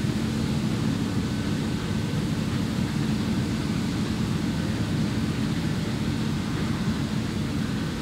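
New Holland CR8.90 combine harvester working in standing wheat, a steady, even drone of engine and machinery.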